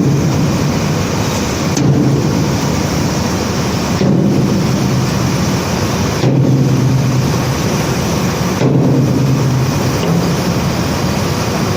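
Conveyor belt carrying rock, running with a steady loud rumble and a low hum; the sound shifts slightly about every two seconds.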